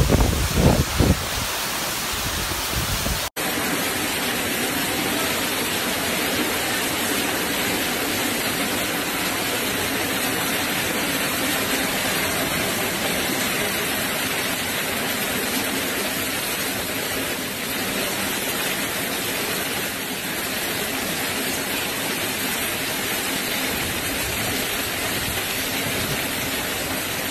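Hurricane wind buffeting the microphone in heavy gusts for the first few seconds. After a sudden cut comes a steady, unbroken rush of heavy hurricane rain pouring down.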